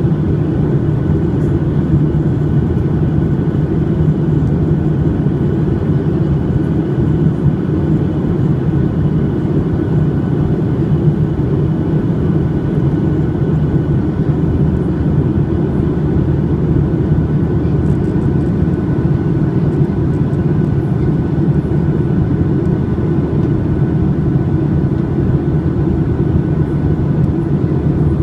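Steady cabin roar inside a Boeing 737-800, from its CFM56-7B jet engines and the airflow, with a faint steady whine above it.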